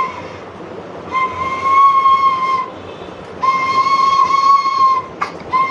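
Bamboo flute blown in long held notes, all on much the same pitch: two full notes, then a third starting near the end, with a brief click just before it.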